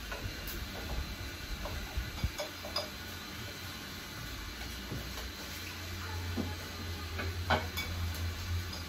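Light clinks and taps of kitchen utensils and cookware, scattered and irregular, with a low hum coming in about halfway through.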